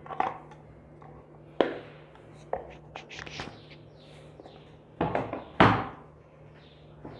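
Small wooden box being handled: its lid shut and the box set down on a table, a series of knocks and clatters, loudest in a pair of thuds about five seconds in.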